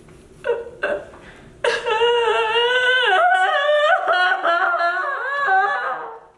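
A person's high voice without words: two short cries, then a long wail held for about four and a half seconds, wavering up and down in pitch, which stops sharply near the end.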